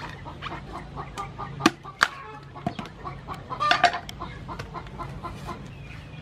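Cleaver chopping into palm fruit on a wooden chopping board: a few sharp knocks, the loudest two about a second and a half and two seconds in. Chickens cluck in the background, a burst of clucks near the end.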